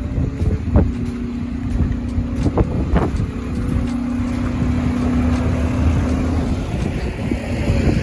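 Heavy diesel engine of a DSNY sanitation truck running close by: a steady low rumble with a held hum over it, a few short knocks, and wind on the microphone.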